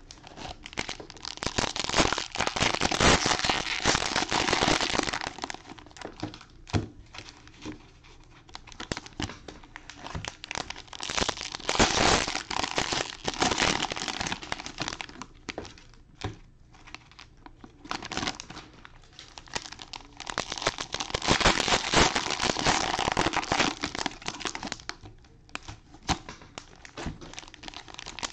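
Clear cellophane wrapper of a football card cello pack crinkling and tearing as gloved hands rip it open and handle it. The crinkling comes in three loud spells, with quieter rustling and small clicks between.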